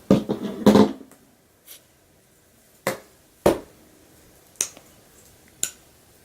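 Snap clips on clip-in hair extensions clicking shut into the hair: several sharp, separate clicks about a second apart.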